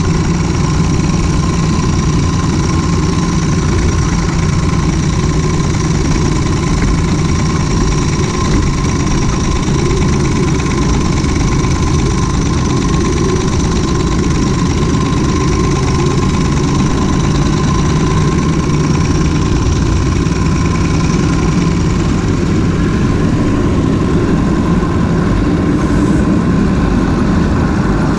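Ride-on miniature railway locomotive under way along its track: a loud, steady mechanical running noise with a continuous low rumble.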